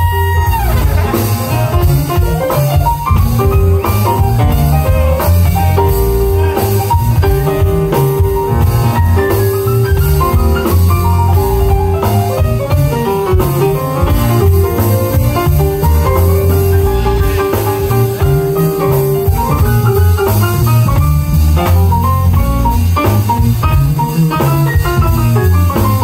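A live jazz band playing: a busy melodic line of quick runs and some held notes over a heavy bass and drum kit.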